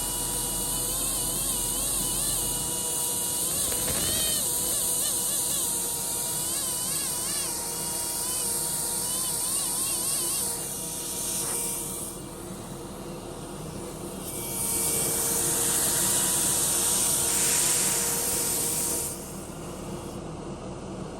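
Compressed-air fossil preparation tool working stone around an ammonite: a steady high hiss with a thin whine that wavers in pitch. It eases off about twelve seconds in, comes back, and drops away again near the end.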